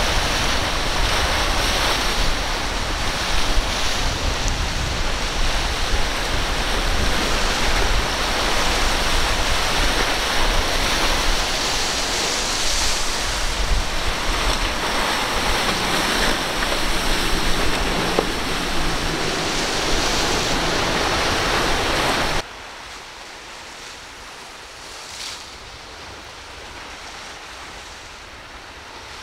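Heavy wind buffeting the microphone over breaking waves and churning surf in rough seas. About 22 seconds in it cuts off suddenly to a much quieter, steady water hiss.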